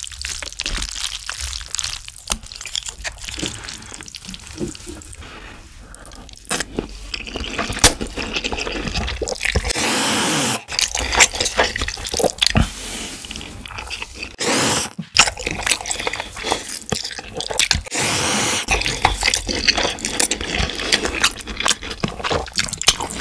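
Close-miked sounds of a person eating black-bean-sauce noodles (ganjjajang): wet chewing and smacking clicks, with several long noodle slurps, one about ten seconds in and more around fifteen to eighteen seconds in.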